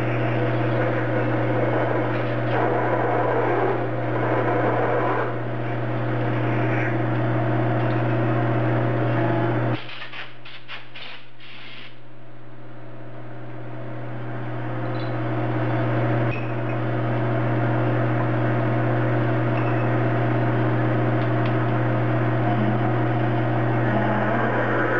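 Metal lathe running at about 315 RPM with a drill in the tailstock cutting into a 416 stainless steel bar: a steady motor hum under a rough cutting noise. About ten seconds in the cutting noise drops away after a few clicks as the drill comes out of the work, and it comes back with a step about sixteen seconds in.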